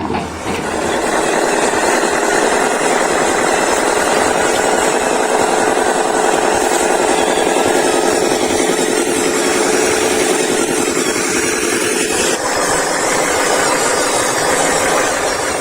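Radio-controlled model construction vehicle running: a steady, loud buzzing mechanical whir with a held tone, which changes about twelve seconds in.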